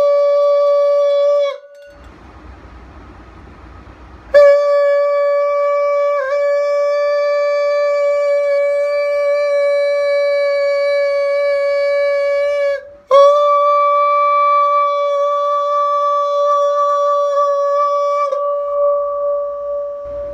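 A man singing one loud, steady, high note straight into a wine glass held at his lips, trying to make the glass resonate until it shatters. The note breaks off about a second and a half in for a breath of about three seconds, then is held again, with a very short break about thirteen seconds in.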